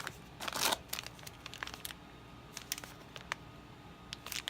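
Plastic bags of small parts crinkling as they are handled, with a burst of rustling about half a second in, then scattered light clicks and taps and a short rustle near the end.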